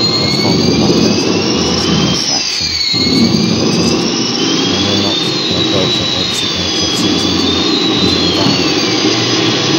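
Loud jet-engine-like noise: a steady rush over a low rumble, with several high whining tones that slide slowly up and down and cross one another.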